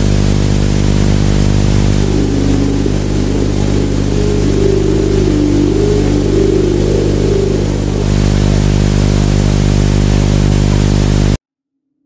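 Loud harsh static with a deep electrical buzz, a distorted glitch noise. It cuts in suddenly, and for a few seconds in the middle a wavering, warbling tone rides over it. It then cuts off abruptly near the end.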